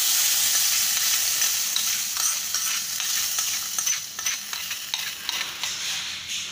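Hot tempering oil with mustard seeds, jeera and curry leaves sizzling as the tadka is poured onto curd, the sizzle dying away. From about two seconds in, a metal spoon scrapes and clicks against the small tadka pan.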